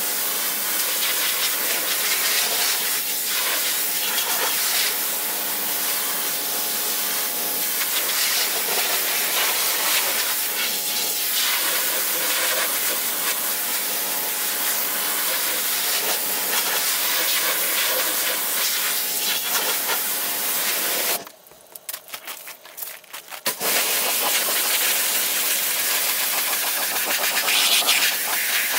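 Pressure washer spraying water in a steady hiss over the hum of its pump. It cuts out for about two seconds about three quarters of the way through, then starts again.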